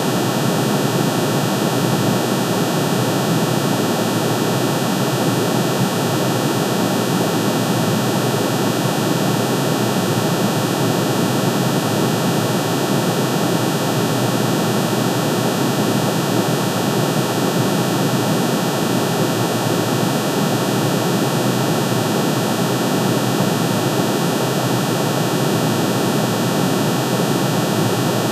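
Synthesized tone of aluminium's atomic spectrum: many sine waves, one for each spectral line, summed and pitch-shifted into hearing range. It is a steady, unchanging dense drone that sounds close to rushing noise, heaviest in the low-middle range.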